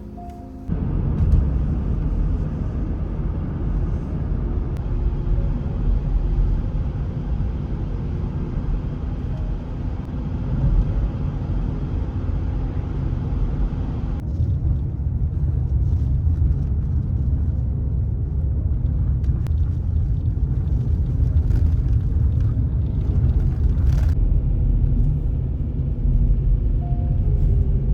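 A steady low rumble cuts in abruptly about a second in, with a lighter hiss above it that drops away about halfway through.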